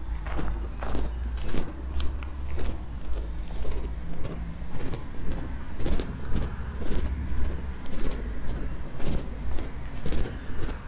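Footsteps of a person walking at a steady pace on pavement, about two steps a second, over a steady low rumble of road traffic.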